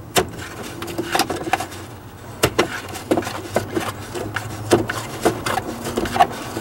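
Irregular clicks, knocks and rubbing of hands working a Ford F150's wiper switch and its plastic dash parts loose from behind the dashboard, over a faint low hum.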